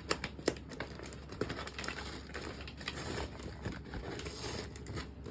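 Paper microwave popcorn bag being pulled open by hand: the paper crinkles and rustles, with a few sharp crackles near the start.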